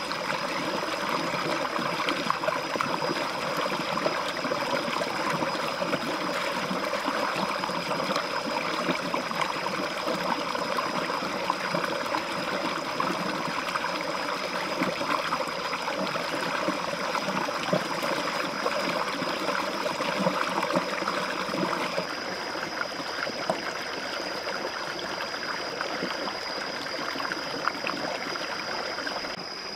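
Shallow stream running over rocks, with water splashing around hands rinsing a plucked duck in the current. A steady high-pitched whine sits over the water sound.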